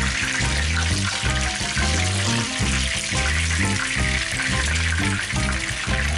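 Hot oil sizzling and bubbling in a frying pan where breaded pork chops are shallow-frying, a dense steady hiss. Background music with a steady bass pattern plays alongside it.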